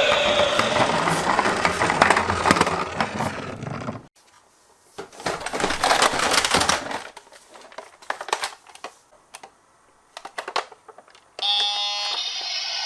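Toy minicars rolling on a slope, small wheels clattering and rattling for about four seconds before stopping abruptly, then a second shorter run and scattered clicks. Near the end a steady pitched sound starts.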